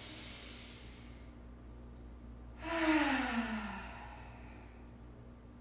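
A woman's deep breath in through the nose, then about two and a half seconds in a long audible sigh out that falls in pitch and fades: a yoga cleansing breath.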